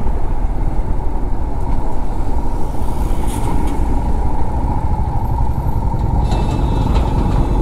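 Motorcycle riding in slow highway traffic, heard from a camera mounted on the bike: a steady low engine and wind rumble with road noise. Faint high tones sound briefly near the end.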